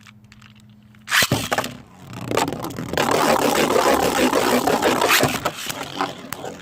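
Beyblade launch: a sharp burst from the launcher about a second in, then spinning tops scraping and knocking against each other and the stadium, loud and continuous from about two seconds on.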